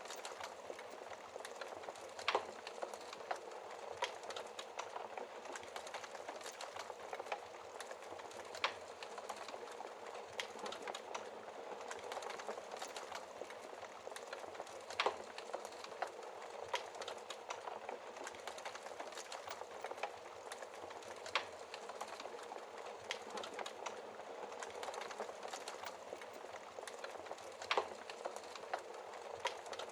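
Wood fire crackling in a fireplace: a steady hiss of burning with sharp pops and snaps scattered every few seconds.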